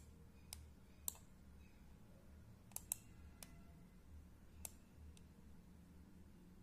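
Computer mouse clicking: about seven short, sharp clicks at irregular intervals, two in quick succession near the middle, over a faint low hum.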